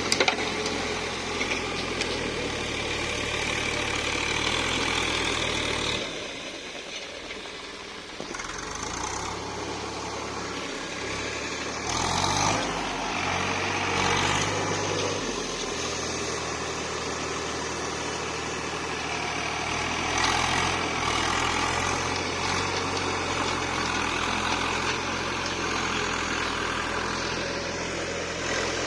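Tractor engine running steadily while plowing a field. It dips quieter for a couple of seconds about six seconds in, and its engine speed shifts up and down for a few seconds near the middle.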